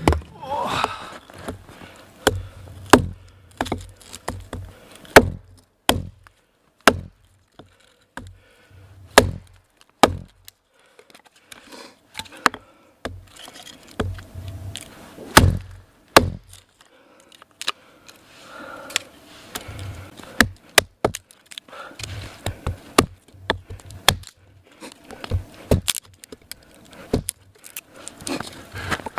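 Hultafors Hultan hatchet chopping and splitting small sticks of wood against a log. It makes a long run of irregular sharp chops and cracks, sometimes several close together, with short pauses between them.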